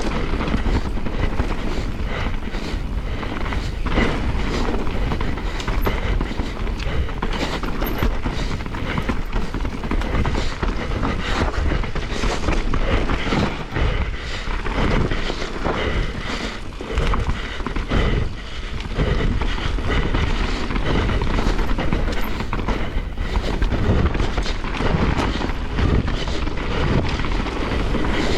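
Mountain bike descending a rough trail, rattling and clattering continuously over bumps, with a steady low rumble of wind on the microphone.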